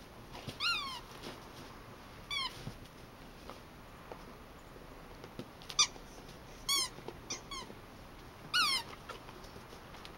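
Rubber squeaky toy shaped like a little shoe, squeaked by a Labrador retriever biting and mouthing it: about seven short squeaks, each dropping in pitch, coming in irregular bunches.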